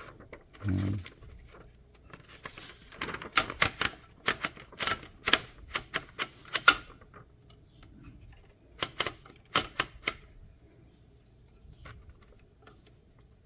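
Smith Premier No. 10 typewriter being test-typed: a low thump about a second in, then a quick run of about a dozen sharp key strikes, a pause, and a few more strikes, after fitting a new ribbon.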